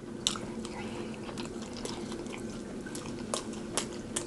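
Close-miked chewing: irregular wet clicks and smacks of a mouth working food, over a faint steady low hum.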